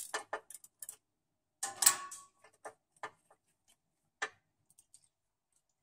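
Ratchet clicking in short irregular runs as a 30 mm socket undoes the external transmission filter housing on a Ford Powershift 6DCT450 dual-clutch gearbox. A few quick clicks come in the first second and the loudest run about two seconds in, then a few spaced single clicks.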